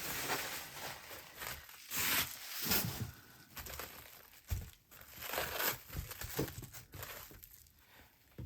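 Packing material being handled during unboxing: irregular crinkling and rustling, with a couple of dull knocks in the middle.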